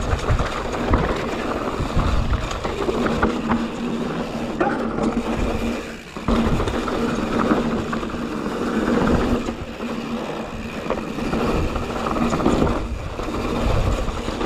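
YT Jeffsy full-suspension mountain bike ridden fast down a very dry, hard-packed dirt trail: tyres rolling and skittering over the ground, with frequent rattling knocks from the bike over bumps. The noise drops briefly about six seconds in.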